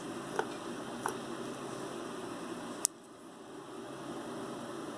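Steady low background hiss with a few faint clicks of small jewelry pieces being handled, and one sharper click a little before the middle.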